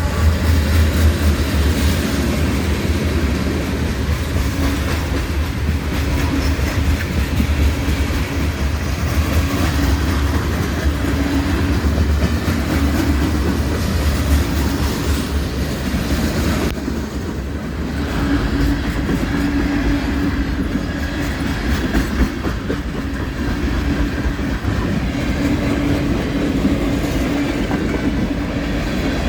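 Train cars rolling past, wheels clicking over the rails in a steady clatter, with a deep low rumble that drops away about two-thirds of the way through.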